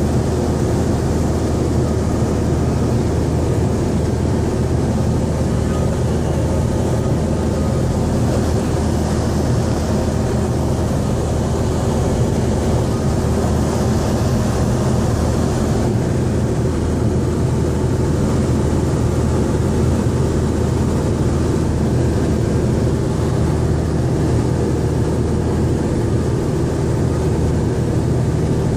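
Grumman light plane's piston engine and propeller at steady cruise, heard from inside the cabin as an even, unchanging drone.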